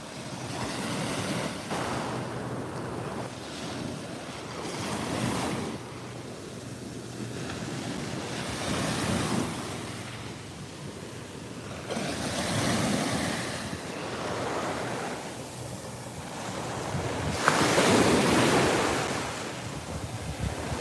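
Atlantic Ocean surf breaking and washing up the beach, swelling and falling in surges every few seconds, with wind buffeting the microphone. The loudest surge comes near the end.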